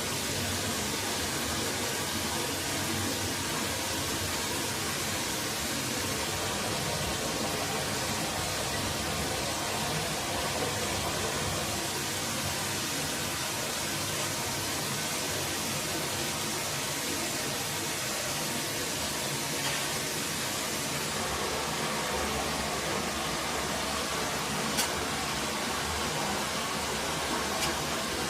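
Steady rushing of a forest stream, with a couple of faint clicks near the end.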